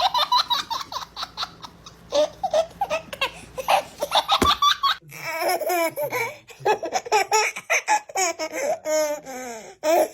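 A baby laughing in quick, repeated bursts of giggles and belly laughs.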